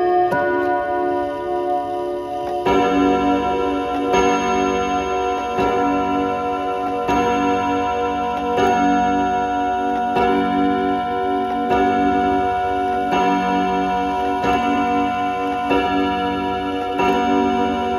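Kienzle wall clock striking twelve on its chime rods with leather-tipped hammers. The last chime note rings out, then from about three seconds in the hour strike begins, one blow roughly every second and a half, eleven blows in all, each ringing on under the next.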